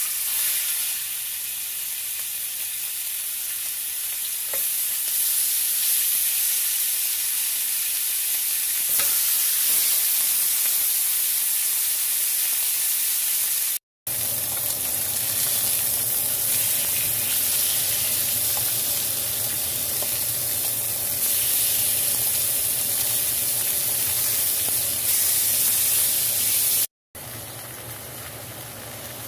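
Bone-in pork chops searing in hot oil in a cast-iron skillet with baby potatoes: a steady, loud frying sizzle that breaks off briefly twice.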